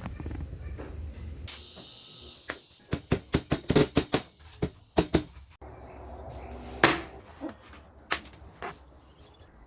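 A quick run of about a dozen sharp knocks over a few seconds, then after a short pause one louder knock and a few lighter ones, over a low steady hum.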